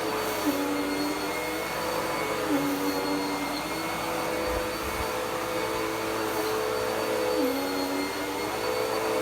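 Dirt Devil PowerMax Pet vacuum cleaner running steadily. Its motor hum dips in pitch and comes back up about every two to five seconds.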